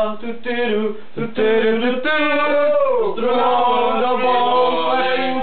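A young man singing unaccompanied, a cappella, in long held notes. His voice breaks off briefly about a second in, then holds a long note that slides down about three seconds in.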